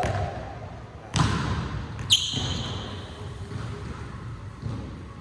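A basketball bouncing on a hardwood gym floor, with a loud knock about a second in and a short high squeak just after two seconds, then fainter bounces.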